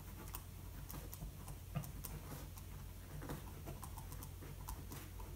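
Pen writing on paper: faint, irregular ticks and light scratches of the nib, over a steady low hum.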